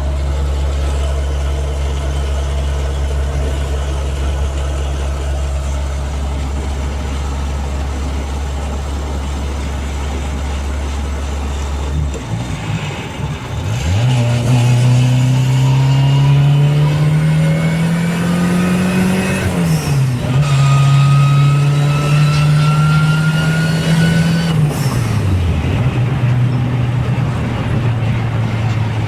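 Turbocharged VW Gol running at a steady cruise, then accelerating hard: the engine note climbs, dips sharply at a gear change about two-thirds of the way in, and climbs again. A high, rising whine from its forged gearbox rides over the second pull. Near the end the driver lifts off and the engine settles back to a steady, lower tone.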